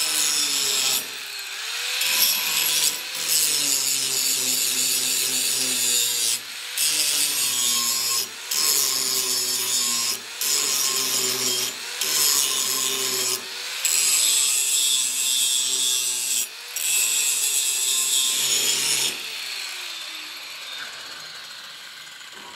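Angle grinder with an abrasive disc grinding down weld beads on a steel strip frame, cutting in repeated passes with short breaks between them. Near the end it is switched off and spins down with a falling whine.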